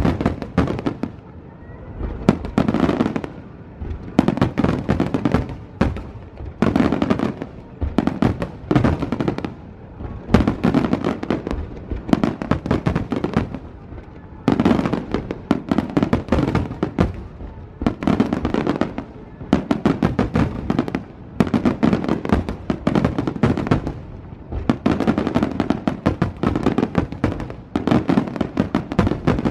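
Fireworks going off in repeated volleys, dense crackling strikes coming in clusters every second or two.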